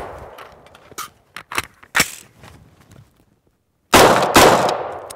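Two AR-15-type rifle shots about half a second apart, close to four seconds in, each trailing off in a long echo. Before them the echo of an earlier shot dies away, and a few sharp clicks sound.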